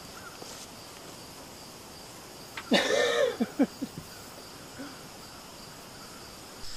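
Crickets chirring steadily in the background, broken about three seconds in by a brief, loud clatter with a squeal.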